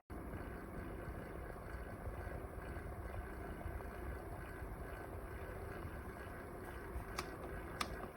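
Steady running whir of a small fan, as of the Philips HU2716/10 humidifier in operation, with a faint constant whine. A few light clicks come near the end.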